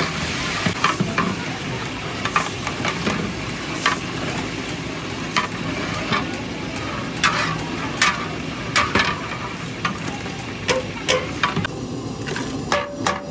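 A long metal ladle stirring a huge aluminium cooking pot of dal, with irregular sharp clinks of metal against the pot over a steady hiss.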